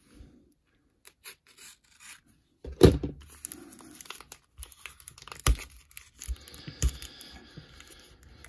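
Blue painter's tape being peeled and torn off a plastic packaging bag, with plastic crinkling. After a quiet start, a loud thump comes just under three seconds in, followed by steady tearing and rustling with a couple of sharp knocks.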